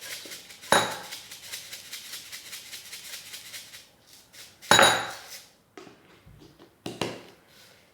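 Dried spice mix rattling as it is shaken from its container onto a plate, a quick run of ticks lasting about three seconds. A sharp clink of the container or a utensil against the dish comes about a second in and again near five seconds.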